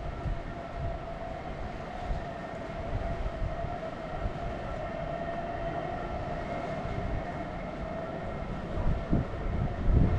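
Southend Pier electric train giving off a steady high whine from its drive or electrics, over a low rumble. Wind gusts hit the microphone near the end.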